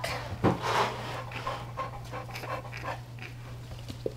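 Cane Corso bitch in labor panting quickly, heaviest in the first second and easing after about three seconds, while a puppy is stuck during delivery.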